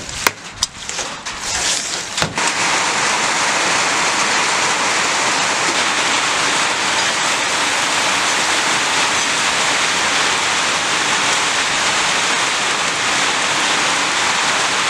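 For the first two seconds, a few wet clicks and squelches as marinated pork bones are mixed by hand in a bowl. Then marinated pork bones sizzle steadily on a wire grill over hot charcoal, an even hiss with no breaks.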